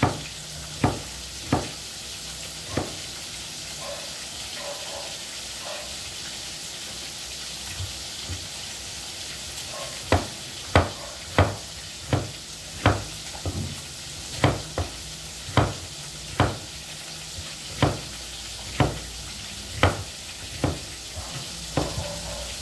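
Large kitchen knife chopping bitter gourd on a wooden cutting board: sharp chops, a few in the first three seconds, then a regular run about every half to one second from about ten seconds in. Underneath is a steady sizzle of oil frying in a wok.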